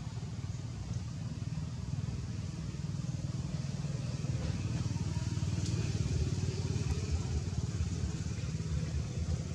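Motor vehicle engine running, a low drone that grows louder toward the middle and eases slightly near the end.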